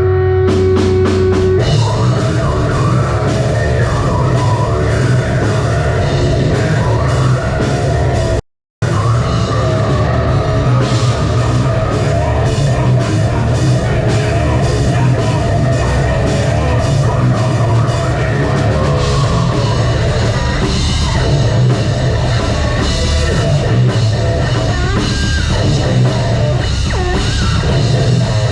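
Metal band playing live and loud: distorted guitars, bass and a pounding drum kit. The sound cuts out completely for a split second about eight seconds in, then comes straight back.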